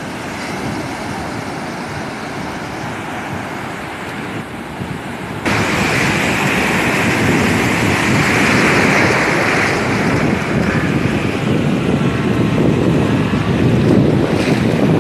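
Ocean surf: waves breaking and washing in a steady rush of noise, which turns abruptly louder and hissier about five seconds in.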